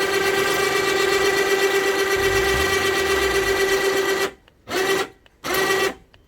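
Electric horn sounding one steady, buzzy blast of about four seconds, then three short blasts.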